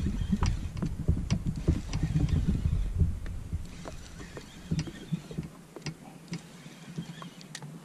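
Low thumps and rumble of water and hull on a fishing kayak, with scattered light clicks from a spinning reel as a hooked fish is played and reeled in. The low thumping dies away about halfway through, leaving only the irregular clicks.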